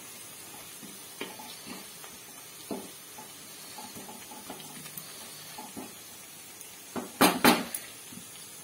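Spatula stirring frying onions in a pan, scraping and clicking against the pan now and then, with a quick cluster of louder knocks on the pan about seven seconds in.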